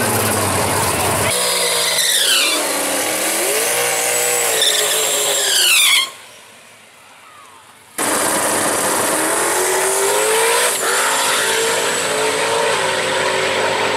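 Fox-body Mustang drag car's engine revving through a burnout, the pitch swinging up and down with the rear tyres spinning. The sound drops away for about two seconds in the middle, then the engine comes back holding a steadier note.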